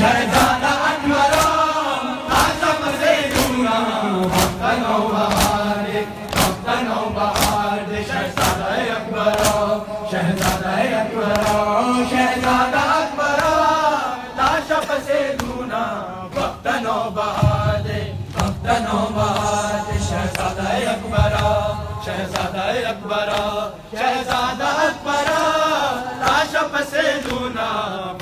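A crowd of men chanting a nauha, a mourning lament, in unison, with sharp rhythmic slaps of matam (hands beating chests) about one and a half times a second.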